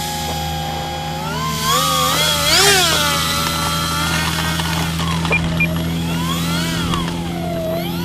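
Electric motor and propeller of a 1.5 m FMS Cessna 182 RC model running with a whine that rises and falls in pitch several times as the throttle is worked. Two short beeps sound about five seconds in.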